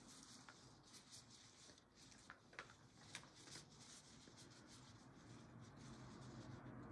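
Faint rustling with scattered soft crackles as gloved hands press damp moss down into the bottom of a glass terrarium.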